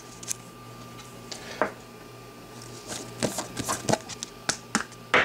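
A trading card being sleeved and put into a rigid plastic top-loader: light plastic rustles and a run of small clicks and taps, thickest about three to four seconds in.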